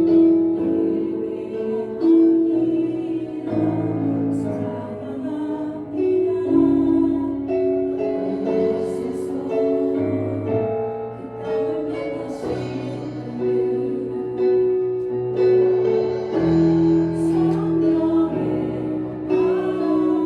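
Contemporary worship song: a sung melody over piano or keyboard accompaniment, with sustained notes changing every second or two.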